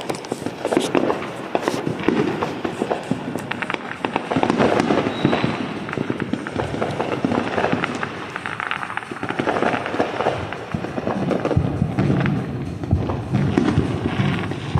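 Fireworks going off one after another: a dense run of bangs and crackles over a continuous low rumble.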